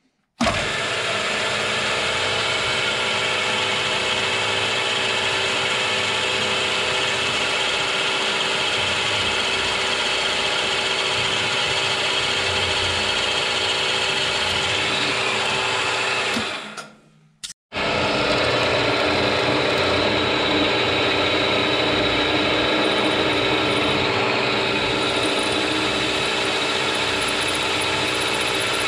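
Milling machine running steadily with a drill chuck, drilling a steel shaft. It winds down and stops about two-thirds of the way through, then starts again within about a second.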